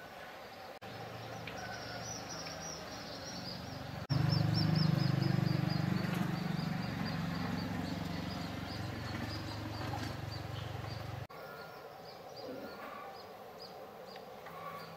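Birds chirping in quick repeated notes over a low hum. The hum jumps louder about four seconds in and cuts off abruptly about eleven seconds in.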